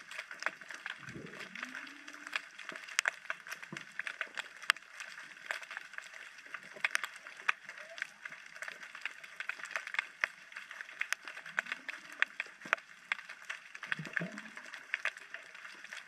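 Underwater ambience heard through a GoPro housing: a dense, irregular crackle of sharp clicks and snaps over a faint hiss, with a few short low swooping tones about a second in and again near the end.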